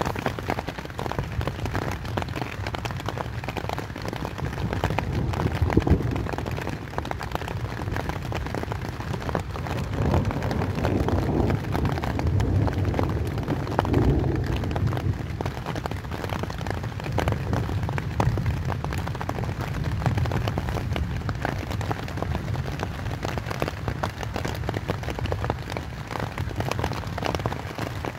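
Rain drumming steadily on a tent's fabric, a dense patter of drops with a deep rumble, swelling briefly about six seconds in and again near the middle.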